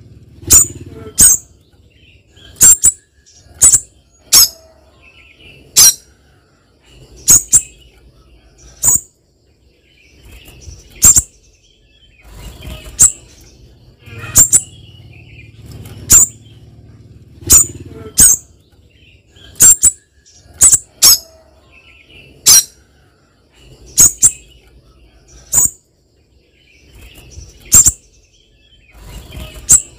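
Spiderhunter giving sharp, very short, high call notes, one every second or two, about two dozen in all, each far louder than anything between them.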